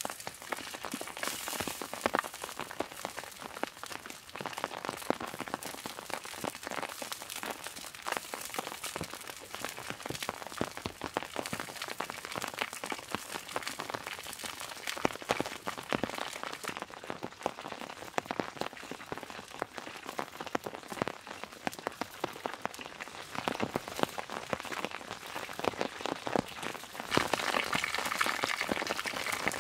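Rain falling steadily, with many close drops pattering on surfaces. It gets louder and denser near the end.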